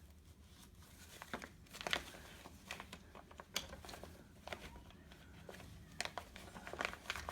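Drapery fabric rustling, with scattered small clicks and ticks as the metal pleat pin is pulled from the return and pinned into the pleat.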